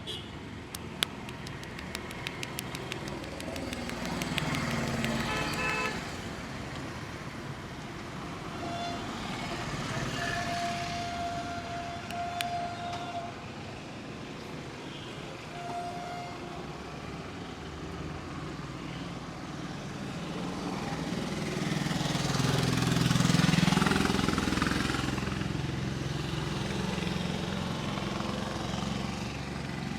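Street traffic: vehicles passing, with a car horn sounding a few times around the middle and a louder vehicle going by about three quarters of the way through. A quick run of sharp clicks sounds near the start.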